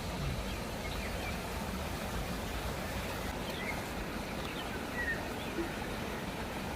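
Steady outdoor rushing noise, strongest in the low range, with a few faint short chirps over it.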